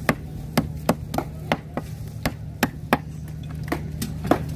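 Heavy machete (golok) chopping fresh fish on a thick wooden chopping block: a quick run of sharp chops about three a second, a short pause, then two more chops near the end.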